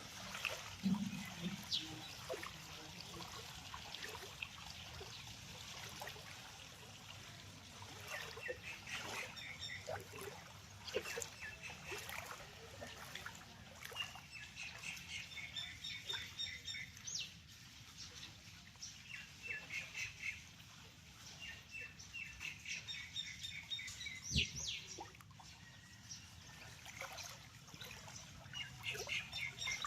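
Birds calling in repeated quick chirping runs, several notes a second, over a faint steady wash of running water.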